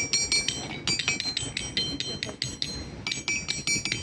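Musical stones (lithophones) struck with a small hand-held stone: a rapid series of clinks, several a second, each ringing with a clear high tone, the pitch changing from stone to stone.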